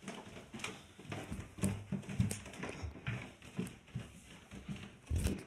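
Footsteps going down indoor stairs, an even series of low thuds.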